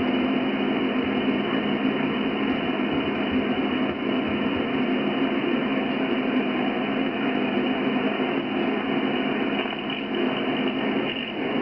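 Steady hiss of band noise from a transceiver receiving in upper sideband on the 11-metre band, heard through its speaker and squeezed into a narrow voice-width passband. It dips slightly in level about ten seconds in.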